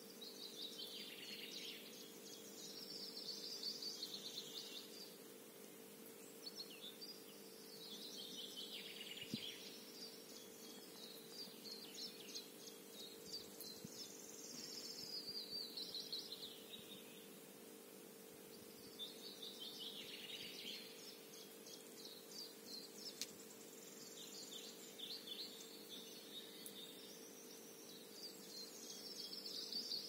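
Songbirds singing in a garden: fast, twittering song phrases a few seconds long, repeated with short pauses, over a faint steady low hum.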